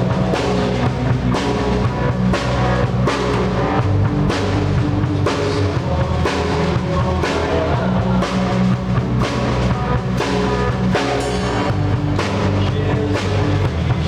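A band playing live at rehearsal: a drum kit keeping a steady beat with bass drum and snare, over sustained bass notes and other instruments.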